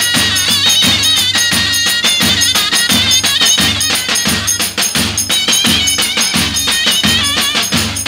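Zurna playing a shrill folk melody over two davul bass drums beating a steady dance rhythm.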